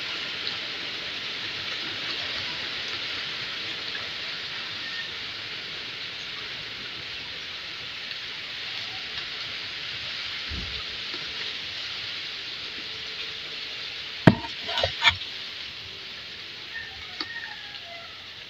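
Steady hissing background noise, with a few sharp clicks in quick succession near the end.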